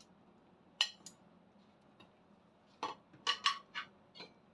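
A metal spoon clinking against a stainless steel cooking pot: one clink about a second in, then a quick run of about six clinks near the end.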